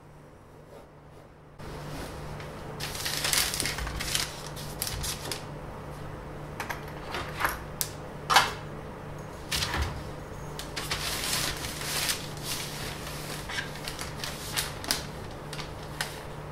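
Pencil and pen scratching on paper over a tabletop, with irregular sharp clicks and knocks as rulers are handled and laid down, over a steady low hum. The handling noise starts about a second and a half in.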